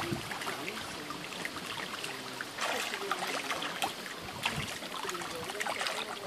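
A dense shoal of fish feeding on bread at the water surface, a continuous crackle of many small splashes and slaps.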